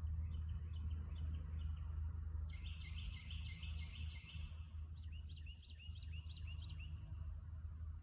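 A songbird singing: three runs of short, quickly repeated high chirps, the middle run the loudest, over a steady low rumble.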